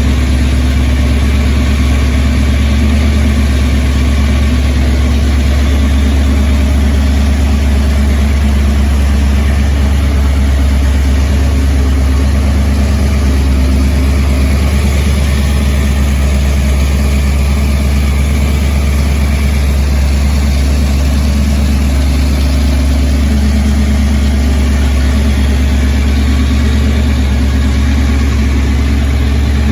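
Engine idling steadily, its low hum holding the same speed throughout.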